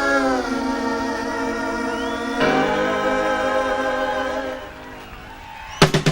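Live rock band with big band playing long held chords that slide down just after the start and change to a new chord about two and a half seconds in, then fade. Near the end the drum kit comes in with fast, loud hits.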